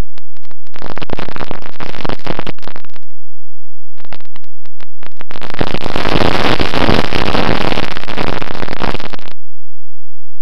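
Loud, distorted rushing wind noise on the onboard camera of a HobbyKing Bixler model plane in flight. It comes in patches that start and stop abruptly: a first stretch from about one to three seconds in, then a longer, louder one from about five to nine seconds in, cutting off suddenly.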